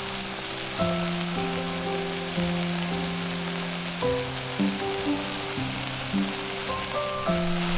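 Food sizzling as it cooks, a steady hiss, under background music with a slow, simple melody.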